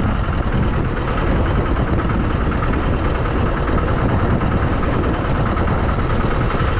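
Auto-rickshaw engine running steadily as it drives along a road, heard from on board with wind and road noise.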